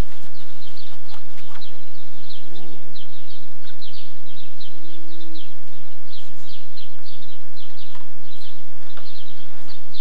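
Steady high-pitched chirping outdoors, several short chirps each second. A brief low tone sounds about five seconds in.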